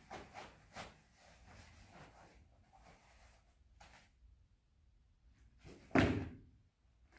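A single hard strike landing on a handheld kick shield about six seconds in, a loud smack with a short echo off the hall. Faint clicks and rustles of movement come before it.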